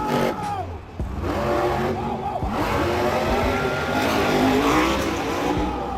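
Monster truck engine revving hard, its pitch rising and falling repeatedly over a loud rushing noise.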